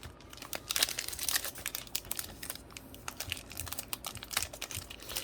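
Crinkly plastic wrapper of a Pokémon card pack being handled and worked open, an irregular run of sharp crackles.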